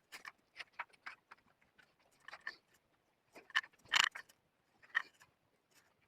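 Faint, scattered rustles and small clicks of a belt and fabric being handled as the belt is fastened around a jacket, with a few louder clicks around the middle.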